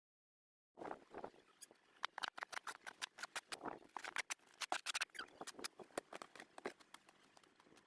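Rapid, irregular crunching clicks with soft scuffs in between, starting about a second in after dead silence.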